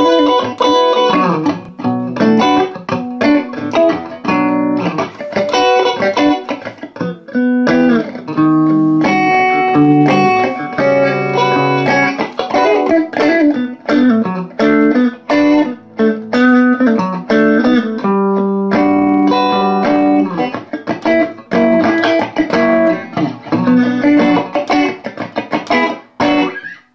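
Telecaster-style electric guitar played through a rebuilt, stock Premier tube amplifier: a continuous run of picked single notes and chords. The tone stays clean with very little gain.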